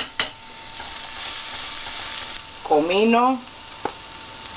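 Chopped green pepper, onion and garlic sizzling in oil in a stainless steel pan as a wooden spoon stirs them, a steady high hiss, with a couple of sharp knocks.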